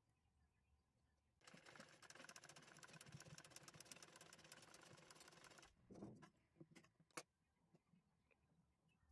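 A black Godrej domestic sewing machine stitching through fabric with a fast, even clatter for about four seconds, then stopping. A few separate clicks and knocks follow.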